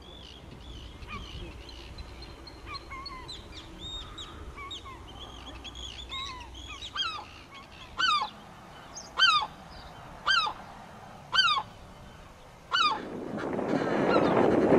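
A gull calling: a run of five loud, falling yelps about a second apart, after several seconds of softer, scattered bird calls. Near the end, wind buffets the microphone.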